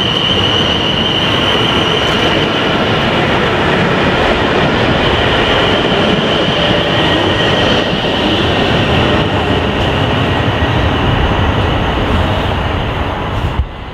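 South West Trains electric multiple-unit passenger train passing close by: a loud, steady rumble of wheels on rail with a high whine over it. The sound eases off near the end as the last coach goes by, with one sharp knock just before it ends.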